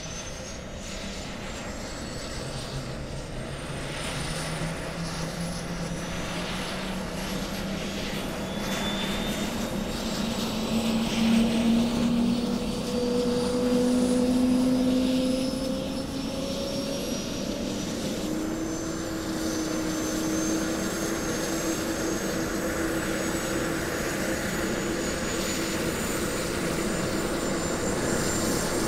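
Helicopter starting up, heard from the landing pad. A high whine climbs steadily in pitch as the engine spools up, and a lower hum rises in pitch as the rotor comes up to speed, all growing louder.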